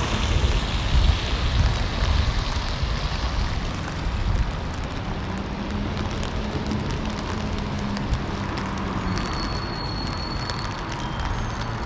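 Rain falling steadily on wet paving. In the first few seconds a car on the wet street rumbles and fades away.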